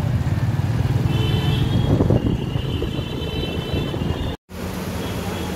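Riding pillion on a motorcycle through town traffic: a steady low rumble of the bike and the road, with thin high tones from the traffic in the middle. The sound cuts out abruptly about four seconds in and resumes as steady street noise.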